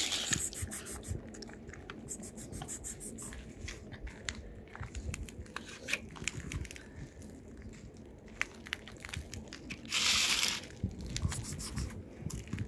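A cat crunching dry food, a quick, irregular run of small bites and crunches, with a short louder burst of noise about ten seconds in.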